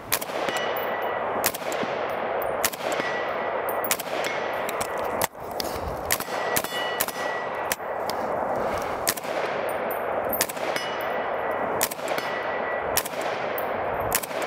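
FN SCAR 17 rifle (7.62×51mm) fired as a string of single shots, about a dozen spaced through the stretch with a loud echo after each. Many shots are followed by the short ring of a steel target being hit.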